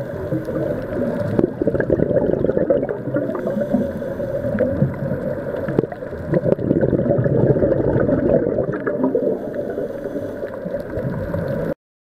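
Underwater sound picked up by a diving camera: a dense gurgling, bubbling water noise with scattered small clicks, cutting off suddenly near the end.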